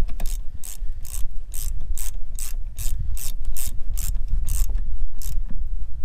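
Hand socket ratchet clicking in short, quick back-swings, about two to three a second, while tightening the bolt that clamps the new parking brake cable in place.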